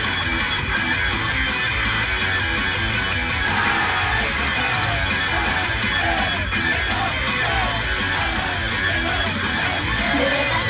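Loud heavy rock music with distorted electric guitar, an instrumental stretch of an idol song played over a live-house sound system.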